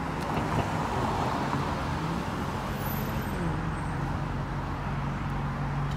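City street traffic: cars passing, with a steady low engine hum under the tyre noise and a slight drop in engine pitch about halfway through.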